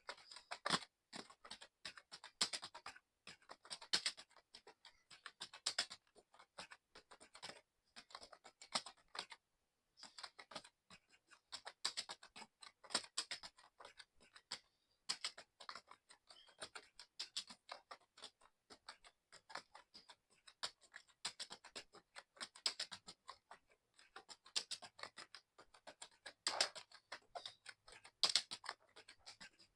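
Fast, continuous typing on a mechanical keyboard: a dense, uneven run of key clicks, broken by a brief pause about nine seconds in.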